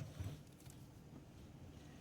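Near silence: faint low background noise, with a couple of light ticks in the first half second.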